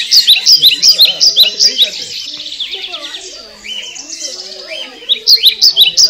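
Sun conures giving loud, shrill repeated calls, several a second, in two bouts: one over the first two seconds and another starting near the end, with softer bird calling between.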